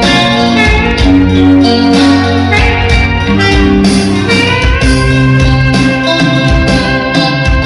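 Live band playing an instrumental passage without vocals: electric bass guitar, electronic keyboard and electric guitar.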